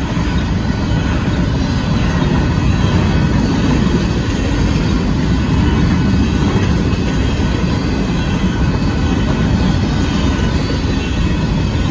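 Grain train's covered hopper cars rolling past steadily: a continuous low rumble of steel wheels on rail.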